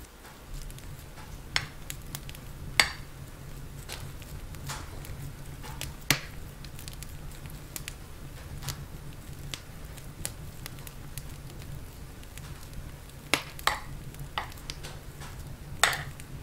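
Irregular clicks and taps of kitchen utensils and cookware over a steady low hum.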